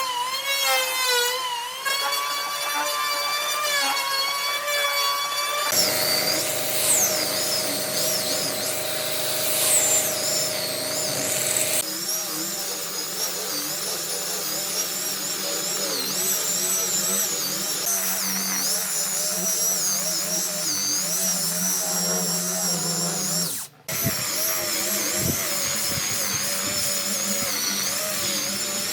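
Electric power tools running in several separate takes, each a whine that wavers in pitch as the tool works the wood. The sound changes abruptly about six, twelve and twenty-four seconds in, with a moment's dropout just before the last change.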